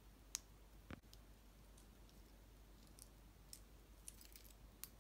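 Near silence with a few faint, sharp clicks, the loudest about a third of a second in, and a scatter of smaller ticks in the second half.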